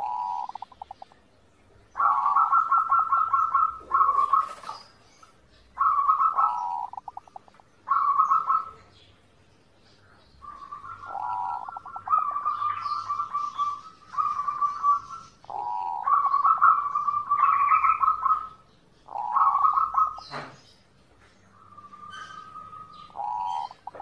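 Zebra dove (perkutut) singing: repeated phrases of rapid, staccato cooing notes, each phrase a second or two long, separated by short pauses. A single sharp click near the end.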